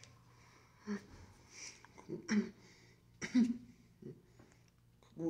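Several short throat and voice noises from a person, a handful of brief separate bursts, over a faint steady low hum.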